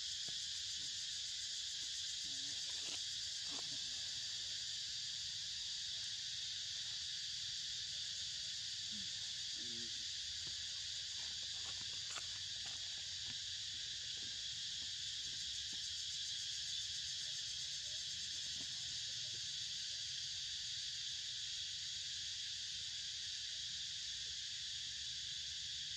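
Steady, high-pitched drone of an insect chorus that never lets up, with a few faint taps and rustles.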